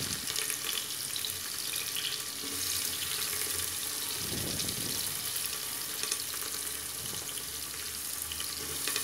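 Sliced onion and green chilli sizzling in hot mustard oil in a pressure cooker: a steady frying hiss with a few small crackles.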